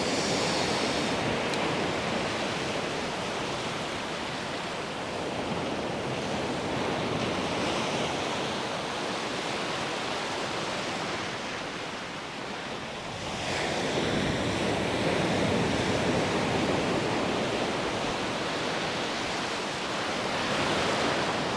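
Ocean surf washing onto the beach, a steady rush of breaking waves that swells about two-thirds of the way through and again near the end, with some wind on the microphone.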